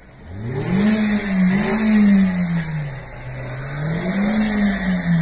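Small front-wheel-drive car's engine revving in two swells, rising about a second in, easing off near three seconds and rising again before falling away, as the car sits stuck on a snowbank with its front wheel unable to grip.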